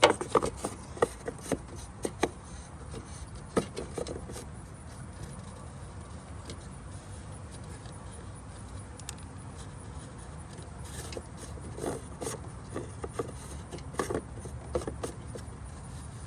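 Scattered light clicks, knocks and rattles of objects being handled, most of them in the first few seconds and again about two-thirds of the way through, over a steady low hum.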